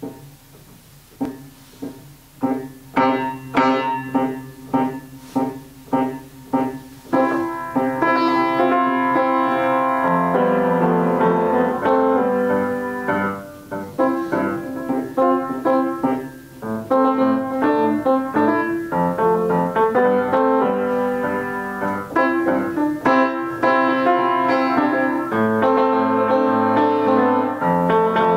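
Upright piano being played: it opens softly, then separately struck notes come about twice a second, growing louder, and about seven seconds in it moves into continuous flowing playing with fuller chords.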